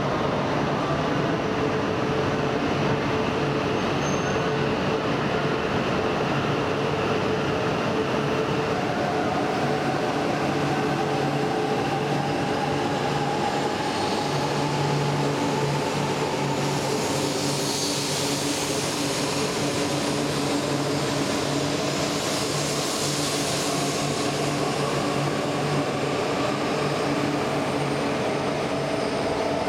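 E4 series Max double-decker Shinkansen pulling away from a platform, a steady machinery hum giving way to a whine whose pitch slowly rises as the train gathers speed from about a third of the way in. A hiss of passing cars swells in the middle.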